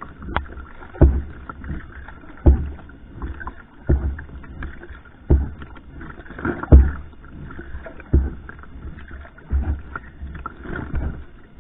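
Steady paddle strokes of a va'a (outrigger canoe) at racing pace, a low thump and splash about every one and a half seconds, with water washing along the hull between strokes.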